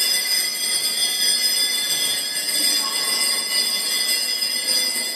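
Bells ringing continuously, a dense steady high-pitched jangle of many ringing tones that starts suddenly just before and holds at an even level.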